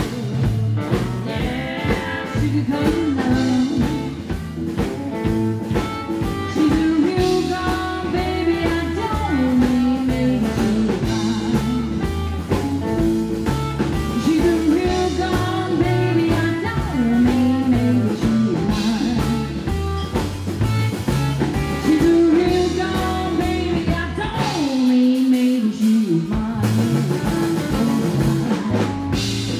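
Live rockabilly band playing: a woman singing over electric guitar, acoustic guitar, upright double bass and drums. Near the end the bass and drums stop for about a second while the voice holds on.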